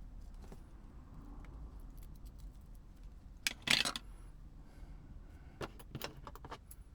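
Small hard parts and tools handled on a work surface during a remote control repair: scattered light clicks, a short jangling clatter about three and a half seconds in, then a quick run of sharp clicks near the end.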